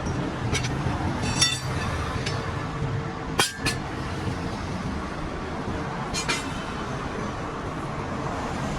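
Metal clinking a few times, with two sharp knocks close together about three and a half seconds in, over a steady rumble of passing highway traffic.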